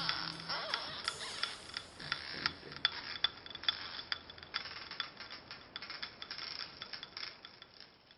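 Irregular sharp clicking and ticking, a few clicks a second, fading away toward the end.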